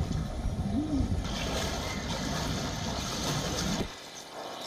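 Floodwater splashing and sloshing over a low rumbling noise, which cuts off abruptly to a quieter sound nearly four seconds in.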